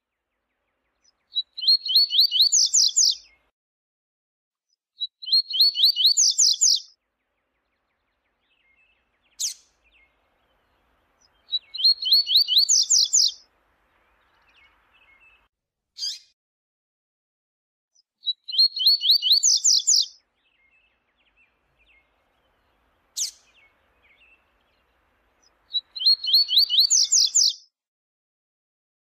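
Double-collared seedeater (coleiro) singing: five short phrases of rapid repeated high notes, one about every six to seven seconds, with a single sharp call note in some of the gaps.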